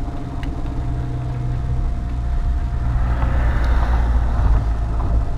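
A motor vehicle's engine running with a steady low hum, growing louder about three seconds in and easing off near the end.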